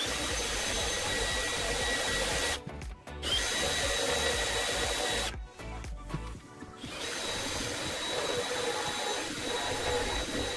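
Power drill boring through a wooden door through a clamped door-lock jig, running with a steady whine over grinding noise. It stops briefly about two and a half seconds in, and again for about a second and a half around the middle.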